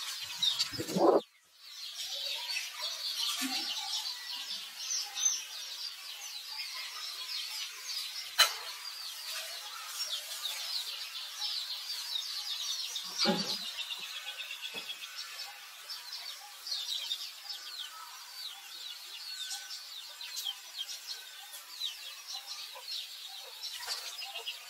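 Many small birds chirping continuously in the background, a dense chatter of short, quick, high calls. About a second in there is a brief louder, lower noise, then a moment of silence, and later a single sharp click and a soft knock.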